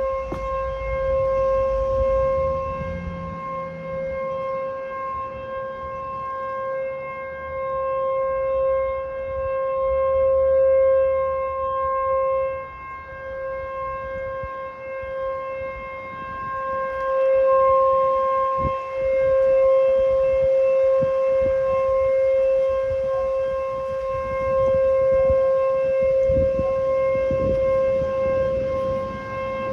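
American Signal T-121 electromechanical outdoor warning siren holding one steady alert tone, its loudness swelling and fading every several seconds as the rotating head sweeps past. The siren is malfunctioning: it is stuck on the steady alert signal and keeps sounding for minutes instead of the usual one-minute test.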